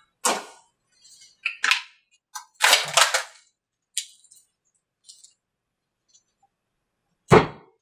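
Knocks and clatters of wooden boards and clamps being lifted off a fiberglass fuselage mold and set down, with the busiest clatter about three seconds in. A single heavy low thump near the end is the loudest sound.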